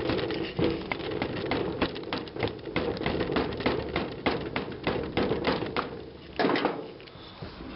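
Rapid, irregular clicking and scraping of hand-tool work on a small transformer's winding, cutting into it to show that the wire is aluminum, not copper. A louder knock comes about six and a half seconds in.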